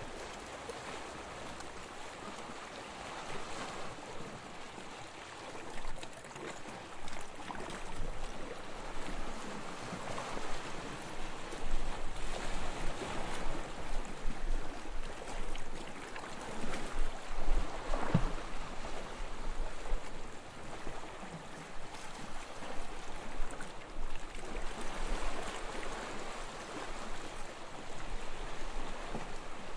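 Gentle waves breaking and washing up a beach, a continuous surf wash that swells and ebbs every few seconds.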